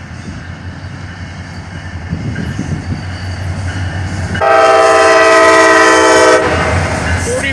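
CSX diesel freight locomotives approaching and passing at close range, the engine and wheel rumble building, then one blast of the locomotive air horn about four and a half seconds in. The horn sounds a steady chord of several notes for about two seconds and is the loudest thing heard; the rumble carries on after it.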